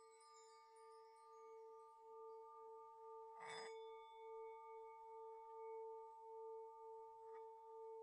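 A faint, sustained bell-like ringing tone that pulses slowly, about once every three-quarters of a second, with higher overtones held above it. A brief noisy swish cuts in about three and a half seconds in, and a fainter one near the end.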